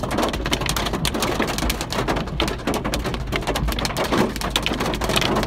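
Heavy hailstorm with rain: a dense, continuous clatter of hailstones striking hard surfaces.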